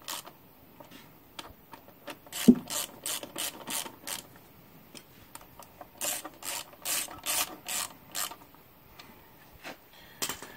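Hand ratchet clicking in two short runs, about three clicks a second, as the small M6 bolts of the air-cleaner base are tightened. A sharp knock comes about two and a half seconds in.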